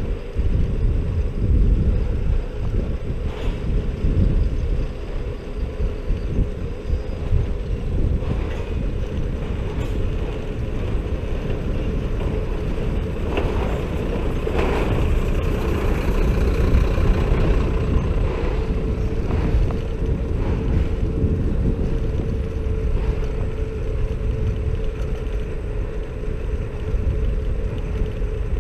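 Wind on the microphone and road rumble from a moving Xiaomi Mi Scooter Pro 2 electric scooter, with a steady hum throughout. The noise grows louder about halfway through while passing close beside a truck.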